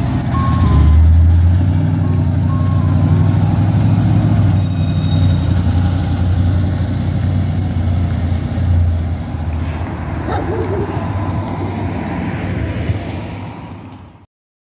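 Ice cream truck's engine running as it drives past, loudest about a second in and then slowly fading as it pulls away, with a brief snatch of its jingle at the start. The sound cuts off abruptly just before the end.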